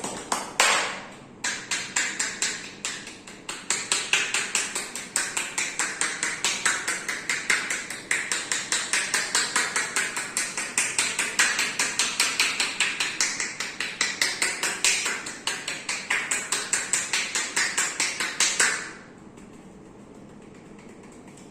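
Hands striking the body in rapid, rhythmic percussion massage (tapotement, hacking and slapping), a fast even run of sharp slaps that stops suddenly about 19 seconds in.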